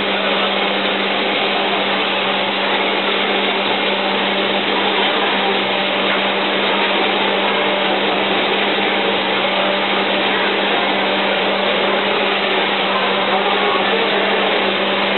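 A steady machine whir with a constant low hum, loud and unchanging.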